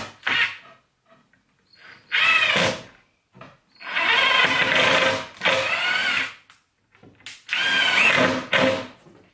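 Cordless drill-driver driving screws into a plywood side panel in about five short runs, the motor's pitch climbing and then dropping in each run.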